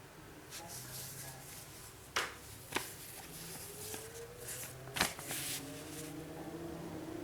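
Handling noise from unboxing a motherboard: packaging rustles on and off, with three sharp clicks or taps, two close together about a third of the way in and one just past the middle.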